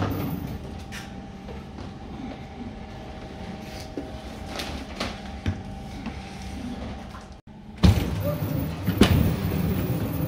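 Airport baggage conveyor belt and X-ray screening machine running with a steady mechanical hum, with scattered clicks and knocks as the carrier is moved through. The sound breaks off briefly about seven seconds in, and a sharp knock follows.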